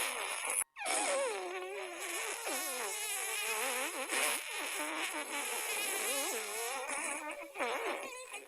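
Cartoonish fart sound effects in a near-continuous run, their pitch wobbling up and down, broken by a sudden brief silence under a second in.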